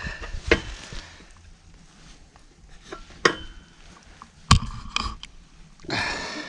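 Sharp metallic clinks and knocks, a few seconds apart, from steel livestock panels as a calf is held and shifts against them. A short rush of noise comes near the end.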